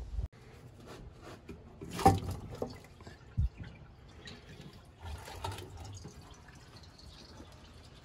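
Hand tools and metal parts handled while unbolting the inlet manifold of a Holden 308 V8: scattered clinks and knocks, the loudest about two seconds in, and a short dull thump about a second later.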